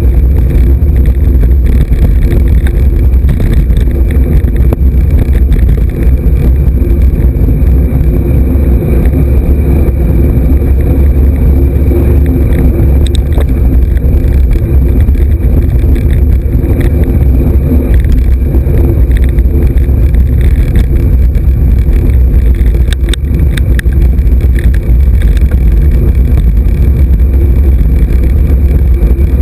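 Wind buffeting the microphone of a camera riding on a moving road bike: a loud, steady low rumble, with a few faint clicks.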